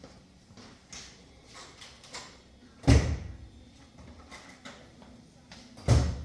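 Two heavy knocks about three seconds apart, with light metallic clicks and taps between them, while the brake pad retaining pin is worked into a motorcycle's rear brake caliper.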